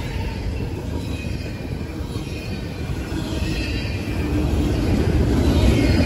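Double-stack intermodal freight cars rolling past at track side: a steady low rumble of steel wheels on rail, with faint high wheel squeal, growing louder about four and a half seconds in.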